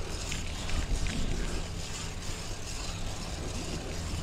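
Wind buffeting the microphone over a steady low rumble of road and traffic noise while riding a bicycle.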